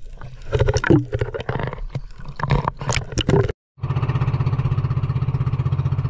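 Irregular knocks and clatter. After a cut about three and a half seconds in, a small boat engine runs steadily with an even, rapid beat.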